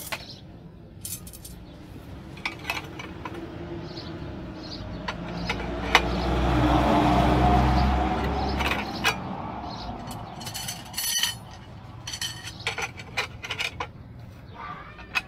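Light metallic clinks and taps of steel wire rod being handled and slotted into a homemade angle-iron stirrup bender. A low rumble swells and fades midway, louder than the clinks.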